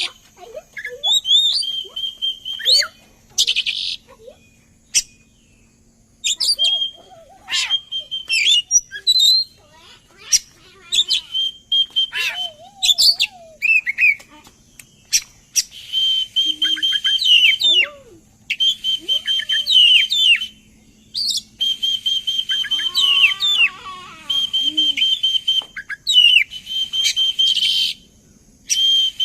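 Oriental magpie-robin (kacer) singing a loud, varied song of whistles, chirps and fast trills, in short phrases with brief pauses between them.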